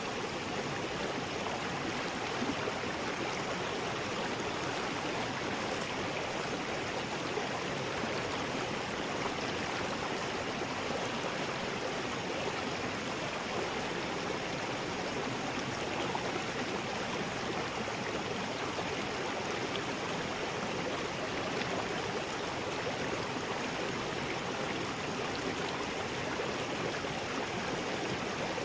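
River rapids: water rushing over rocks in a steady, unbroken roar of white noise.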